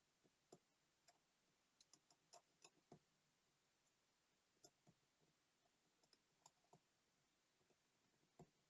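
Faint, irregular light clicks and taps of small tools handling the tiny parts of a digital wristwatch during disassembly and cleaning.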